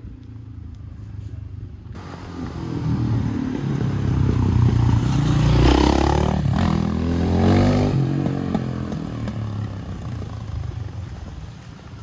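A motor vehicle driving past: its engine grows louder for several seconds, peaks about six seconds in, drops in pitch as it goes by, then fades away.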